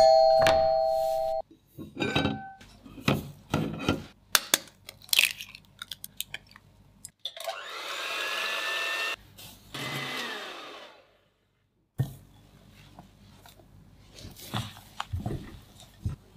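An electric hand mixer beating egg whites in a glass bowl runs for about four seconds in the middle, a steady motor hum with a whine. Before it there are light scattered knocks and clicks. After a short silence come quieter taps and scrapes of a spatula mixing batter. A loud steady ringing tone opens the clip and lasts about a second and a half.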